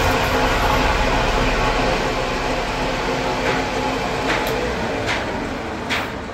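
Metal lathe running steadily with a dense mechanical hum while a cutting tool turns a hydraulic-jack seal. The running gets gradually quieter, and a few light clicks come in during the second half.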